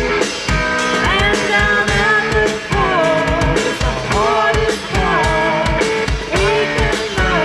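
Live rock band playing: a woman singing the lead melody over electric guitars and a drum kit keeping a steady beat.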